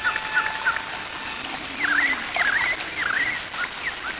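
Small birds chirping: a run of short, quick calls that sweep up and down in pitch, coming thicker from about two seconds in, over a steady hiss.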